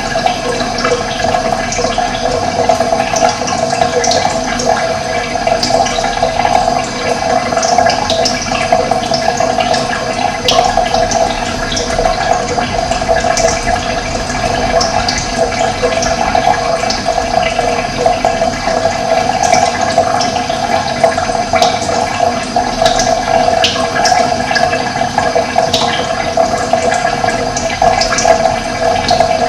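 Running water rushing steadily, with short high bird chirps scattered through it.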